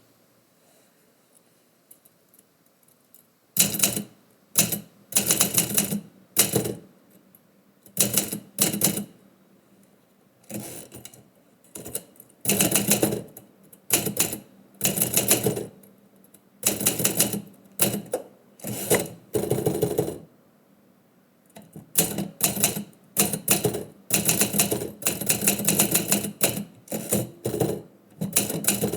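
Typewriter typing in quick runs of key strikes with short pauses between them, starting about three and a half seconds in.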